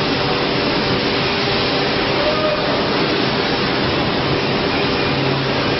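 5-axis CNC router machining a carving: the spindle runs and the cutter works the block, a steady, unbroken machining noise with a low steady hum under it.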